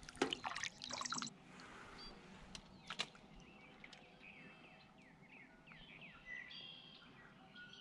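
Brief splashing as a small black crappie is released by hand and kicks away through the water, then faint birdsong of short chirps, with one light knock about three seconds in.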